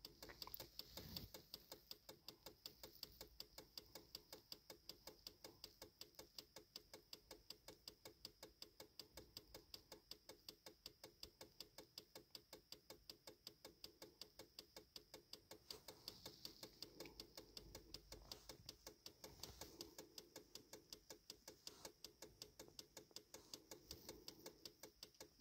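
Near silence with a faint, regular ticking, about three ticks a second.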